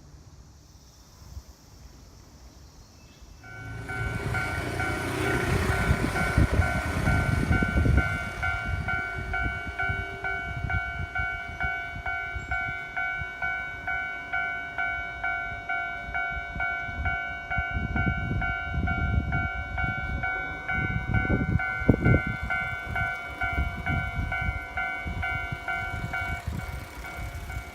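Japanese railroad crossing's electronic warning bell on the Keio Inokashira Line. It starts about three and a half seconds in and rings in an even, repeating chime of roughly one and a half strokes a second, stopping shortly before the end. Trains rumble past over it in two spells.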